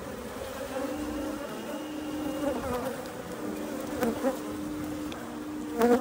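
Honeybees buzzing around an open top-bar hive, a steady hum. There are short knocks about four seconds in, and a louder one near the end as the wooden top bars are handled and lifted.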